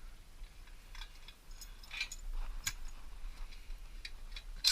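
Scattered light clicks and taps of hand tools and bolts against the metal of a small engine while its bolts are being removed, with a short loud burst at the very end.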